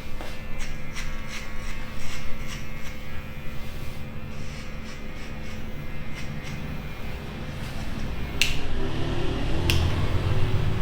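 Barbershop haircut sounds: a steady electric hum under a run of light clicks and snips. Two sharp clicks come near the end as a low rumble builds.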